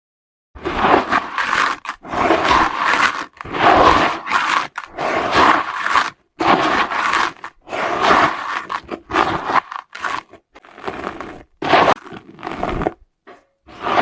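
Dry, gritty red dirt crumbling, a run of close gritty crunches one after another, starting about half a second in and thinning to shorter, sparser crunches near the end.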